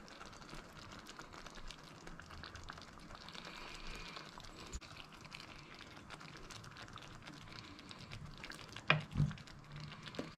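Brown mushroom gravy simmering around meat patties in a frying pan: a faint, steady bubbling and crackle with small clicks. Two sharper knocks come near the end.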